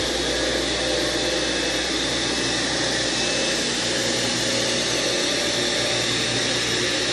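Craftsman 113 belt-driven table saw running free with no wood being cut, a steady, smooth whine like a jet engine. The motor drives the blade through machined pulleys and a lathe belt, which run without the clunk of the stock parts.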